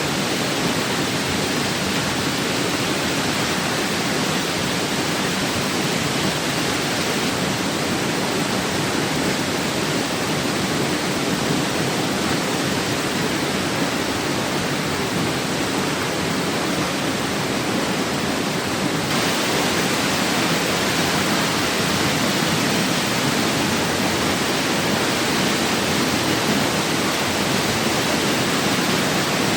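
Waterfall pouring into a jungle pool: a steady, even rushing of falling water, with a slight shift in its hiss about two-thirds of the way through.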